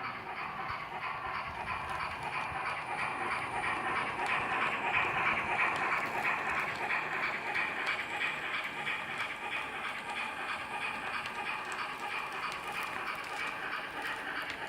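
Model BR 44 steam locomotive running with its Henning sound decoder playing a steady, rapid steam chuffing over the rolling noise of the train. It grows a little louder midway and then eases off.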